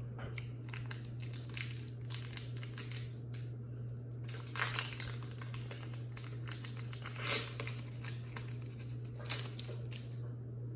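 Foil wrapper of a Pokémon booster pack crinkling and tearing as it is opened and handled, with a few louder crinkles about halfway through and near the end, over a steady low hum.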